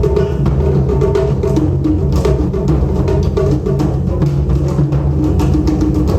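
Taiko drum ensemble playing a dense, fast run of strikes at a steady loud level.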